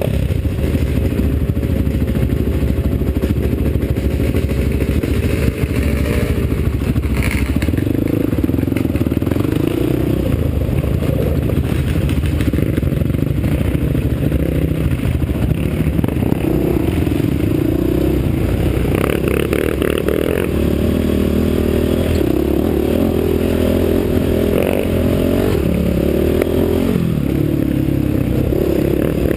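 A sport quad's engine runs under load on a dirt trail, heard close up from the machine. Its note rises and drops in steps with throttle and gear changes, over a continuous clatter and rattle from the rough ground.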